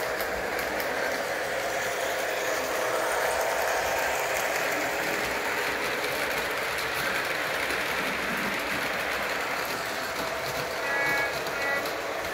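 O-gauge model train running on three-rail track, a steady rolling rumble of wheels and motor as the cars pass. Two brief high beeps sound near the end.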